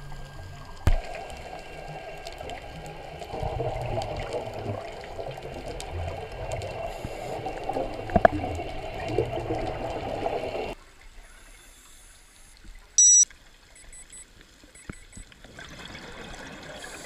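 Muffled underwater noise of moving water and scuba bubbles, picked up by a camera in its underwater housing. The noise drops away abruptly partway through. About two seconds later comes one short, loud electronic beep. Near the end there is a hiss of a diver's exhaled bubbles.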